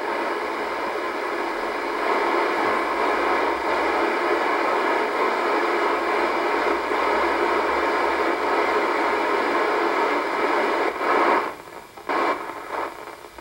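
Unsquelched FM hiss from an Icom IC-R8500 communications receiver's speaker while it is tuned through an empty stretch of the 29 MHz band. About eleven seconds in the hiss drops out in choppy gaps as the tuning reaches the carrier of an amateur radio repeater on 29.650 MHz, which quiets the FM noise.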